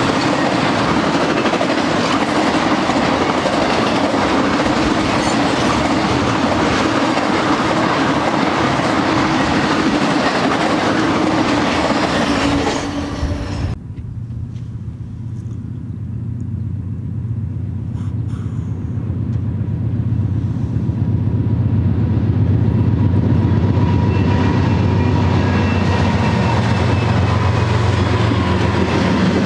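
Freight train rolling past close by, its intermodal spine cars loaded with highway trailers giving a steady rumble and rattle of wheels on rail. About halfway through, the sound cuts to a second freight train whose diesel locomotives' low steady drone grows louder as they come near and pass, followed by the rumble of its cars rolling by.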